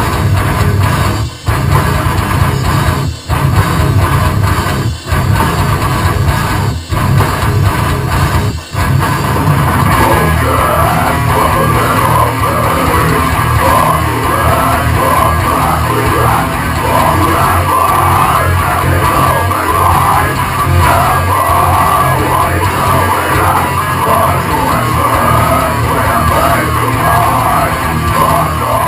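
Heavy rock music with guitar and drums, broken by short stops about every two seconds at first; about ten seconds in a yelled, sung vocal comes in over the band.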